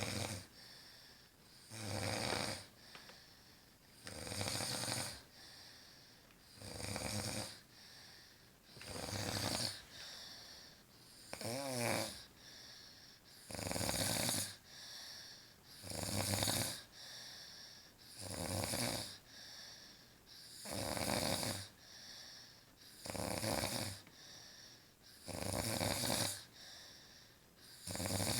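A sleeping woman snoring in a steady rhythm, one snore about every two and a half seconds. One snore near the middle has a wavering whistle in it.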